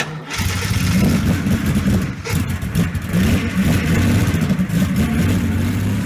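A vehicle engine running, with small rises and falls in revs. It starts suddenly at full level.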